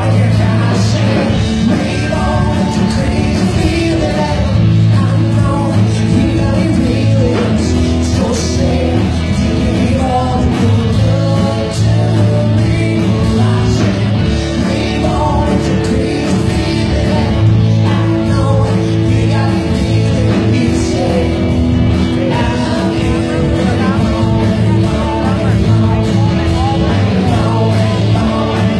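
Live rock band playing: electric guitars, bass guitar and a drum kit keeping a steady beat, with a man singing lead.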